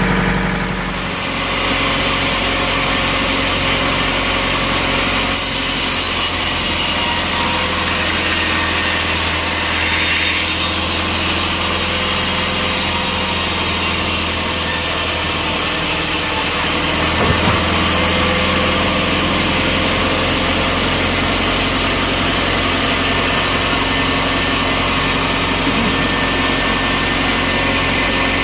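Engine-driven sawmill saw running steadily and cutting through a log. A brighter, hissing cut sound rises for about eleven seconds in the first half, and there is a short knock a little past the middle.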